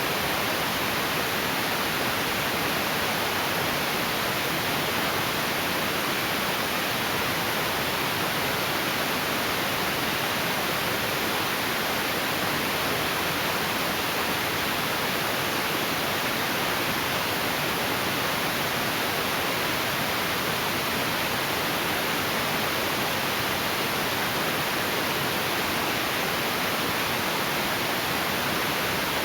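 Heavy rain pouring down in a steady, even hiss, with no let-up.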